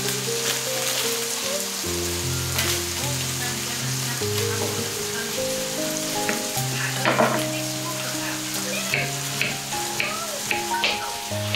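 Soft background music with a slow, stepped melody over a steady hiss. Near the end, a knife slices a cucumber on a wooden chopping board in several crisp cuts.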